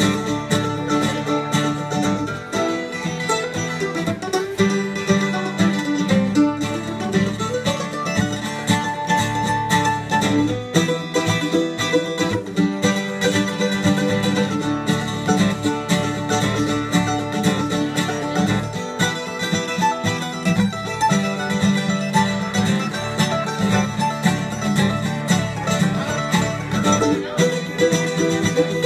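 Live acoustic string band playing an instrumental break in a country-bluegrass style: a strummed acoustic guitar keeps a steady rhythm under a plucked lead line, with no singing.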